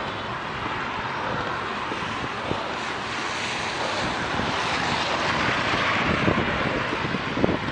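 Wind buffeting the microphone over a steady hiss of bicycle tyres on a wet road at about 14 km/h; the hiss swells louder in the middle.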